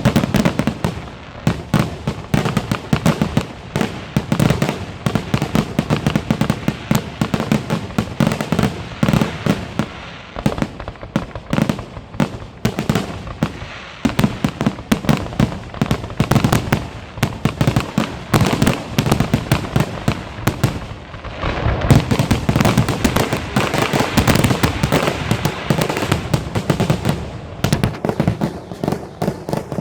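Fireworks display: a dense, rapid string of bangs and crackling shells going off without a break, growing thicker and louder about two-thirds of the way through.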